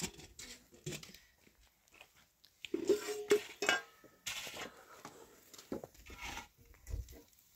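Dishes, pots and cutlery clinking and clattering in irregular bursts, with a short pitched call about three seconds in.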